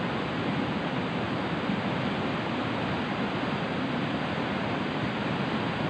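Steady rushing of a fast-flowing river running over rocks and shallow rapids.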